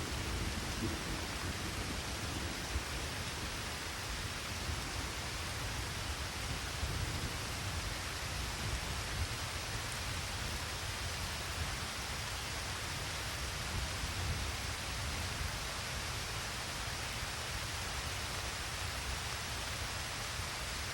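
Steady rain falling: an even, unbroken hiss of rain with a low rumble underneath.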